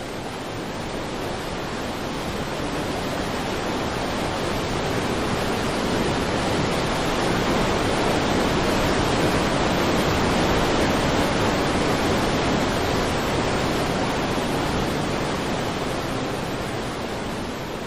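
Rushing floodwater of the Yellow River's Hukou Waterfall: a steady, dense wash of falling and churning water that swells in the middle and eases off near the end.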